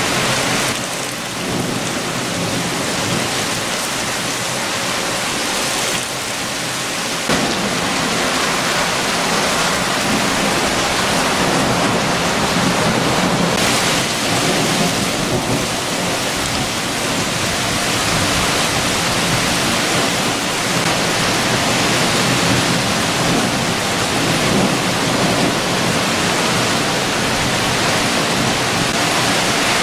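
Heavy rain falling steadily in a downpour.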